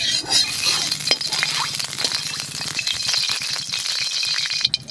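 Mustard oil heating in a steel kadai, crackling and spitting with many sharp pops while a spatula is worked through it. It starts suddenly and dips briefly near the end.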